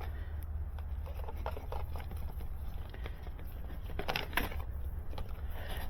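Stiff armored fiber-optic drop cable being pushed through a hole drilled in a house wall: scattered light scrapes and clicks over a steady low rumble.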